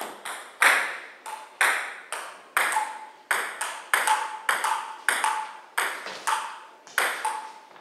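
Table tennis rally: the ball clicks off the paddles and the Kettler table about twice a second in an even back-and-forth rhythm, each hit ringing briefly in the room.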